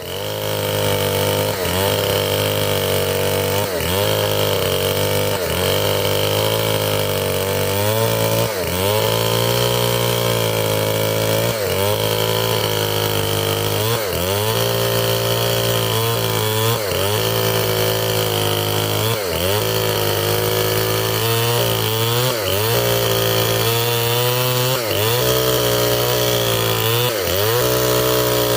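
Stihl 070 two-stroke chainsaw running at high revs under load, ripping lengthwise through a durian trunk. The engine note dips briefly every second or two as the chain bites into the wood.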